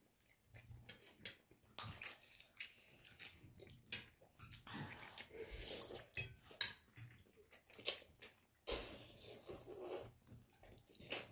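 A fork clinking and scraping against a dish as noodles are eaten, in a scatter of short, quiet clicks with a couple of longer scraping or rustling stretches, and some chewing.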